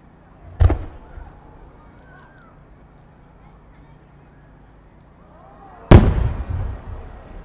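Fireworks going off: one deep boom, then about five seconds later a louder, sharper boom that rumbles and echoes on for a second or so.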